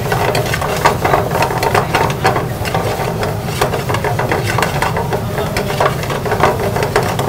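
Chicken pieces sizzling in a black frying pan on a gas burner while a steel ladle stirs and scrapes them, clinking against the pan over and over, with a steady low rumble underneath.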